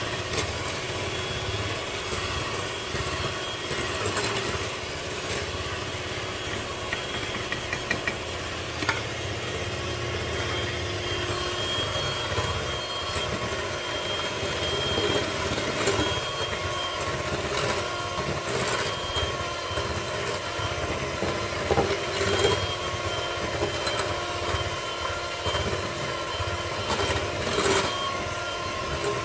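Electric hand mixer running steadily, its twin beaters whisking sponge-cake batter of egg yolks, sugar and flour in a glass bowl, with occasional short clicks.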